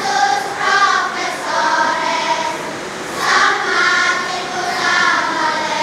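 A choir of schoolchildren singing together, holding notes of about half a second to a second each.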